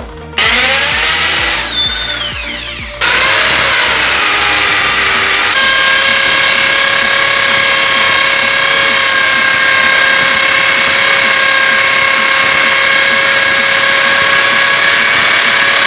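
Einhell electric drill boring into the wall. A first burst starts about half a second in, then from about three seconds it drills at full speed: the motor whine rises for a couple of seconds, then holds steady and loud over the grinding of the bit.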